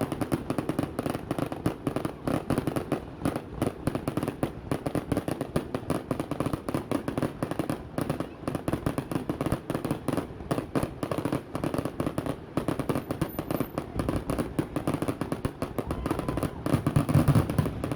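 Fireworks show going off in a dense, continuous run of sharp cracks and pops, many a second, with heavier booms coming in near the end, which the watcher takes for the start of the finale.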